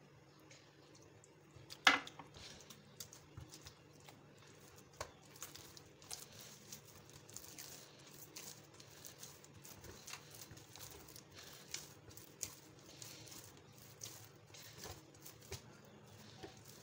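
Hand kneading soft dough in a stainless steel bowl: irregular soft slaps and squishes as the dough is pushed and folded, with the hand and dough knocking against the bowl. One louder knock comes about two seconds in.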